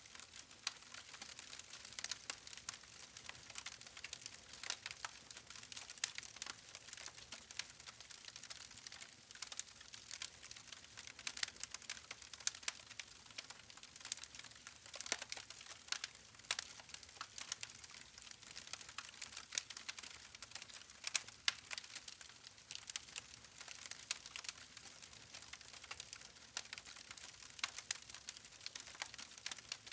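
Wood fire crackling: many small irregular pops and snaps from the burning logs over a faint hiss.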